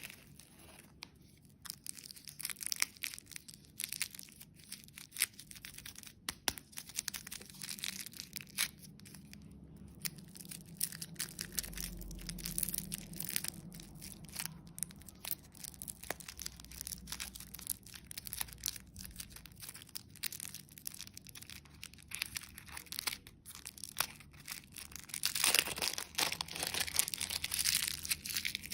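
Dense crinkling and crackling of candy packaging being handled and torn open, with many small sharp crackles. It gets louder for a few seconds near the end.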